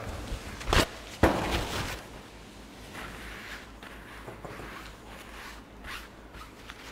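Battered trotters sizzling as they deep-fry in hot oil in an aluminium pot, a steady hiss with small crackles. About a second in come two sharp knocks, something set down or handled nearby, which are the loudest sounds.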